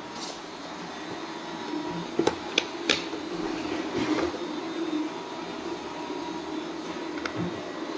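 Robot vacuum cleaner running with a steady motor hum, with a few sharp clicks about two to three seconds in.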